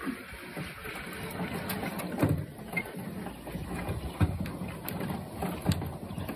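Inside a canoe: water washing against the hull, with a dull hollow knock from a paddle stroke on the hull about every one and a half to two seconds.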